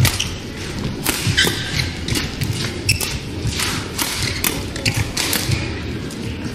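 Badminton doubles rally: rackets striking the shuttlecock in a fast exchange, a sharp hit every half second to a second, with the players' footwork on the court.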